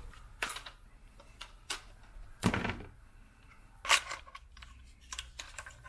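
Hard, aged plastic parts of a BMW E36 fuel pump assembly clicking and knocking as the old pump is pried and worked loose from its sending-unit bracket: a handful of sharp clicks, the loudest about two and a half seconds in.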